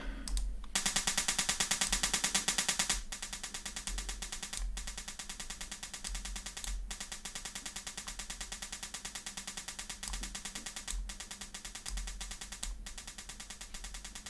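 Dirac-pulse (needle-impulse) measurement signal from a Mosconi DSP played through a loudspeaker: a rapid, evenly repeating train of sharp clicks. About three seconds in the clicks drop sharply in level as the generator volume is turned down. The signal is now too quiet, so the first positive half-wave is missed and the speaker falsely reads as phase-inverted.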